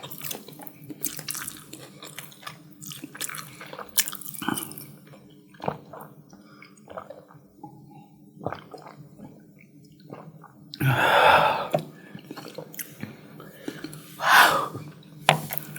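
Close-miked wet chewing and mouth clicks of someone eating spicy chicken curry with biryani rice. Two louder noisy sounds stand out, each lasting about a second, one a little past the middle and one near the end.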